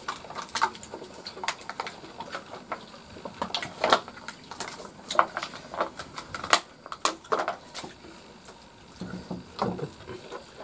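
People eating by hand: irregular small smacks and clicks of chewing, with fingers and a spoon tapping against plates and a wok.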